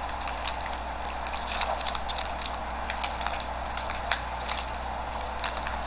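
Crinkling and tearing of a foil trading-card pack wrapper being opened, with irregular crackles and rustles as the cards are handled.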